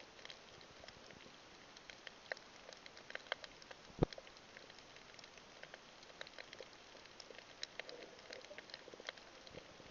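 Underwater reef ambience picked up by a submerged camera: a steady hiss with many faint, irregular clicks and crackles, and one louder knock about four seconds in.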